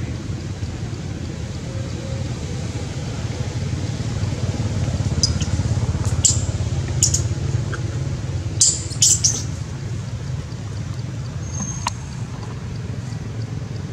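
Outdoor ambience dominated by a steady low rumble of wind on the microphone, with a few short high-pitched chirps, the loudest a quick cluster about eight to nine seconds in.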